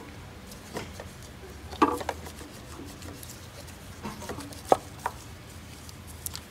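Scattered light clicks and knocks of plastic coil-on-plug ignition coils being wiggled out of their spark plug holes and moved aside, with a cluster about two seconds in and one sharp knock near the end, over a low steady hum.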